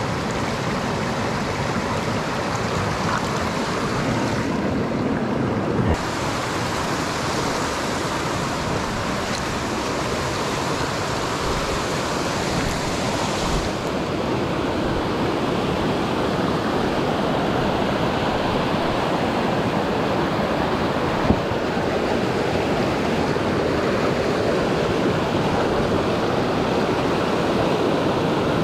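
Mountain creek water rushing steadily, with one sharp click about three-quarters of the way through.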